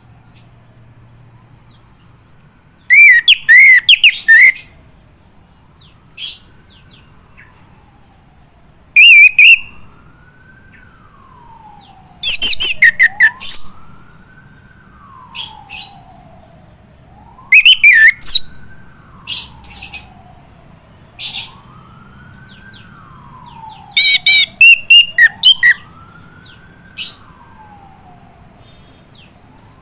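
Male chestnut-capped thrush singing loud, rapid phrases of twittering, whistled notes in bursts every few seconds. This is the full, free-flowing song keepers call ngeplong. Underneath, a fainter sweeping whistle falls and rises about every two seconds.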